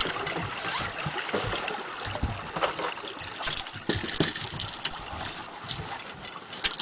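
Water lapping and slapping against a fishing boat's hull as it coasts with the outboard shut off, slowly fading, with scattered knocks and bumps inside the boat.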